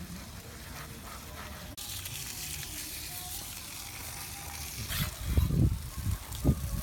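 Steady hiss of water spraying from a garden hose or sprinkler onto a lawn, with a few heavy, irregular thuds near the end.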